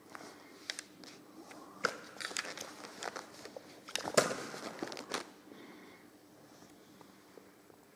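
Rustling and crackling with scattered clicks and knocks, loudest around two and four seconds in, fading to a faint steady hum after about five seconds.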